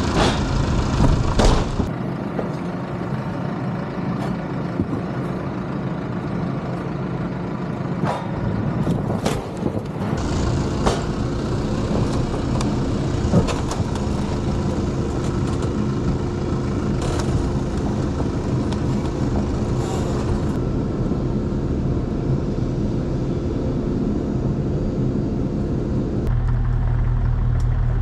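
A New Holland tractor's engine running steadily while its front loader lifts and carries a wooden solar kiln, with scattered knocks and clatters. Near the end a deeper, heavier engine note takes over.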